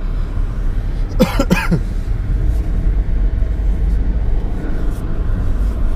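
Subaru's engine and tyres rumbling steadily, heard from inside the cabin, while it drives through deep snow. About a second in there is a short vocal outburst.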